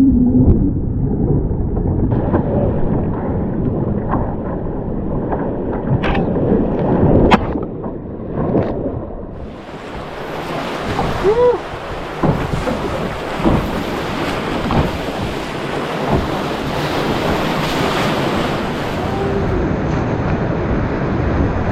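Rushing whitewater of a river rapid, with wind buffeting the microphone. It starts as a dull, muffled rumble with a few sharp knocks, then about halfway through opens out into a bright, full hiss of churning water.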